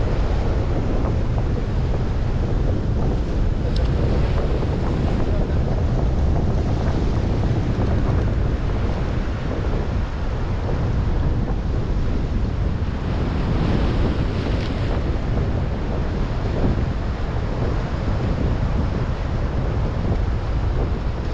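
Sea surf washing and breaking against rocks, with steady wind buffeting the microphone and giving a low rumble.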